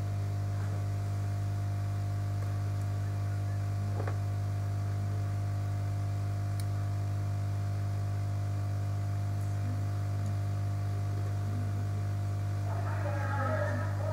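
Steady electrical mains hum with a ladder of overtones, unchanging throughout, and one faint click about four seconds in.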